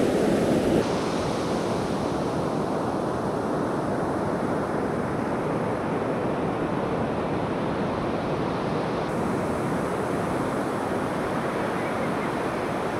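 Steady rush of ocean surf on the beach.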